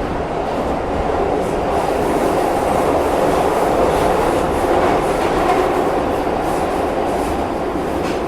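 Urban rail train running along the track: a steady, loud rumble of wheels on rails that swells slightly through the middle.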